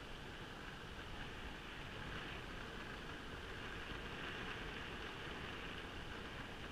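Steady rushing noise of an Evolve Bamboo GTX electric skateboard rolling along an asphalt street, its wheels running on the road surface.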